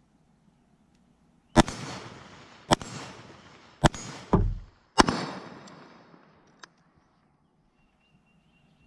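AR-15 carbine firing four shots about a second apart, each followed by an echo trailing off. A short low thump falls between the third and fourth shots.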